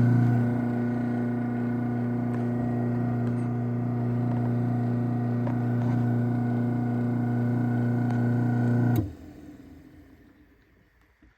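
Craftsman 1/2 hp chain-drive garage door opener (139.53930DM) running as it closes the door, a steady motor hum. About nine seconds in it cuts off suddenly with a click as the opener reaches its stop.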